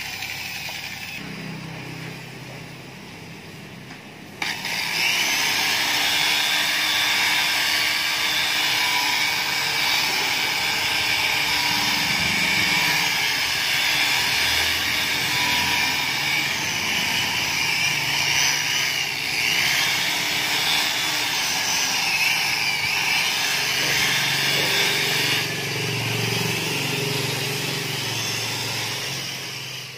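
Electric rotary car polisher running with its buffing pad on the paintwork, a steady motor whine over a rushing noise; it gets markedly louder about four and a half seconds in and holds until it fades at the end.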